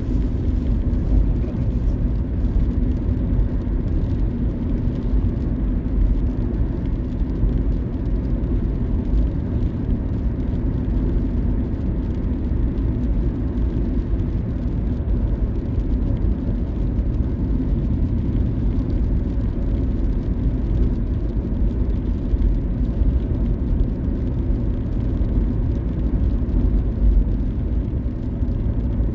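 A car being driven along the road, its engine and tyre noise a steady low rumble.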